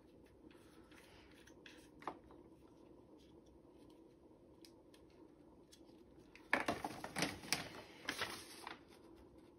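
Faint small clicks of small plastic parts being handled, then a paper instruction sheet rustling and crackling as it is pulled out and unfolded, loudest for about two seconds near the end.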